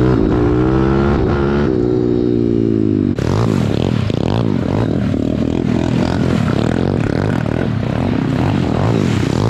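Pit bike engines running. At first a single engine eases off, its pitch slowly falling. After an abrupt change about three seconds in, more than one engine revs up and down repeatedly, their pitches rising, falling and crossing.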